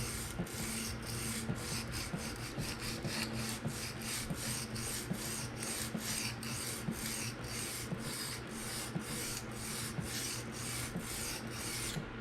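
PM60 steel knife blade stroked back and forth across a 220-grit diamond sharpening stone, an even rasping scrape at about three strokes a second that stops abruptly near the end. It is coarse-grit bevel thinning to raise a burr.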